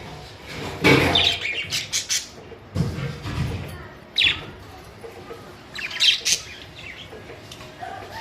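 Budgerigars chirping and chattering in short bursts of sharp high notes, with a low dull rumble about three seconds in.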